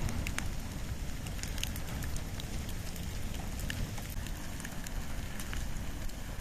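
Wood and bamboo burning in a bonfire: irregular small crackles and pops over a steady low rumble.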